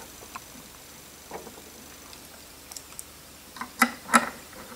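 Small metal screws and a hex screwdriver clicking against the metal top plate as the screws are set into it. There are a few faint ticks, then two sharp clicks close together near the end.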